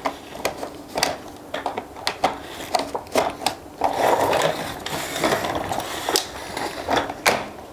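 Plastic baby walker-rocker being folded and latched into walker mode by hand: a string of irregular plastic clicks and rattles, with a denser rustling, scraping stretch a little past the middle.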